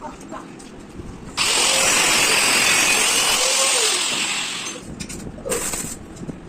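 A power tool working metal frame stock for about three seconds. It starts abruptly about a second and a half in and tails off near the five-second mark.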